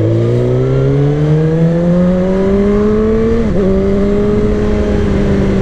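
Sport motorcycle engine accelerating, its pitch climbing steadily. About three and a half seconds in there is a quick dip at a gear change, after which the engine note holds nearly level and eases slightly.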